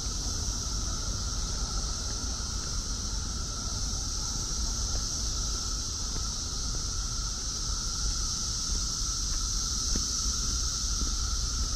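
Brood X periodical cicadas in a massed chorus: a steady high-pitched drone with a second, lower steady hum beneath it, over a low rumble of wind on the microphone.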